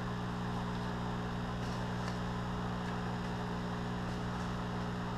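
Steady low electrical hum at mains frequency from the running bubble-cloner setup, with a couple of faint soft scratches of fingers in potting soil about two seconds in.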